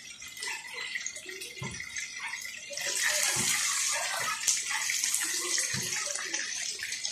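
Chorizo sausages sizzling and crackling in hot oil in an aluminium wok. The sizzle gets louder about three seconds in, while the sausages are being turned with metal tongs.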